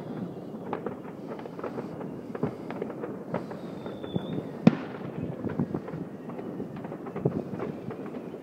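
Many distant fireworks and firecrackers going off in an irregular crackle of bangs, with one sharper, louder bang about four and a half seconds in, just after a brief high whistle.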